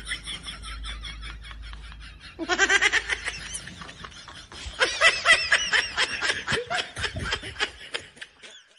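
Laughter in quick rhythmic pulses: a bout fading out at the start, then a louder one from about two and a half seconds in that runs most of the way to the end.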